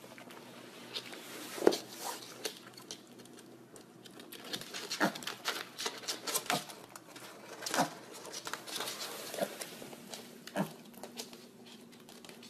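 A mini piglet's small hooves tapping irregularly on a hard wood floor, mixed with mouth clicks as it snaps up and eats a treat from a hand. The taps come thickest in the middle.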